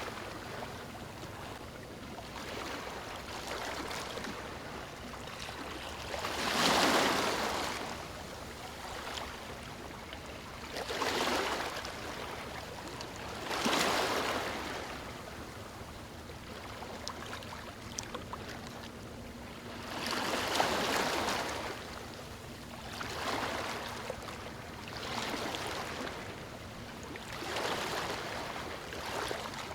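Small sea waves washing onto a beach, one swell of surf every few seconds, about seven in all, with a steady wash between them.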